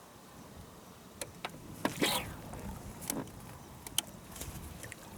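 A scatter of light clicks and knocks, with a short whoosh about two seconds in.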